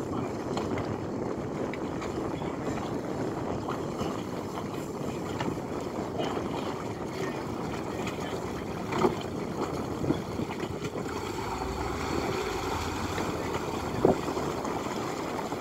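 Harbour dockside ambience: a steady rumble of background noise, with two sharp knocks, one about nine seconds in and a louder one near the end.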